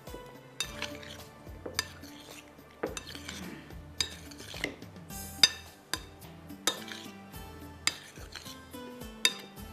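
Utensil clinking and scraping against a mixing bowl in irregular knocks, about one a second, as chicken, boiled eggs and vegetables are tossed to coat them in dressing. Soft background music plays underneath.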